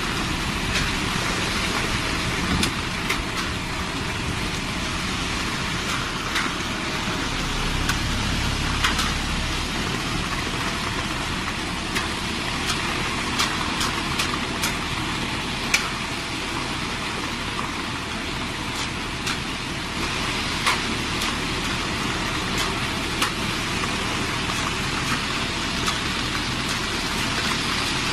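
HMC350 self-loading concrete mixer running: a steady engine and machine noise with scattered sharp clicks and knocks. A deeper rumble swells briefly about eight seconds in.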